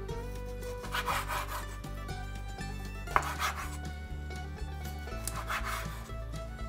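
A chef's knife slicing raw chicken breast into strips on a wooden cutting board: three long rasping strokes about two seconds apart as the blade draws through the meat and scrapes the board, with a sharp tap of the blade on the board about three seconds in. Soft background music runs underneath.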